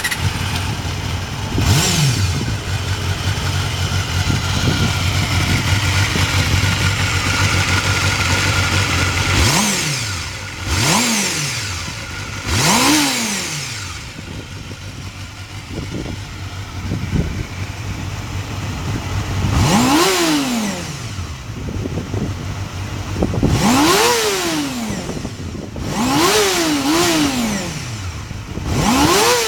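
Honda Jade 250's inline-four engine idling steadily, then revved in several short throttle blips that rise and fall, from about ten seconds in. The seller presents it as running with few abnormal noises.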